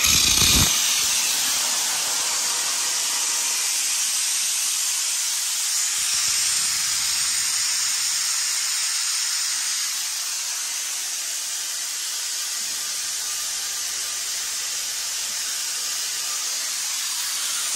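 Compressed air blasting out of the opened drain valve at the bottom of an Emax compressor's air tank: a loud, steady hiss that starts suddenly and eases slightly about ten seconds in as the tank pressure falls.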